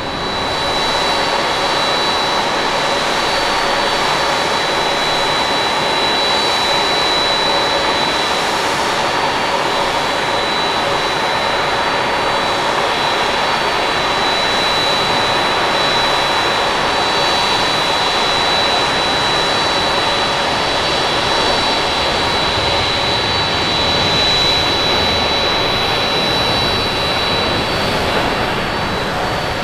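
Jet engines of a Boeing 787 at takeoff power during its takeoff roll: steady, loud jet noise with a high, steady whine on top.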